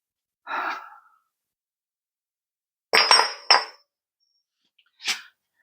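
A man's sigh just after carrying heavy steel lift blocks. About three seconds in come two short sharp sounds close together, and near the end one more brief one.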